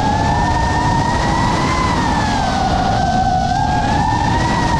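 FPV quadcopter motors and propellers whining, the pitch drifting slowly up and down with the throttle, over steady rushing wind noise.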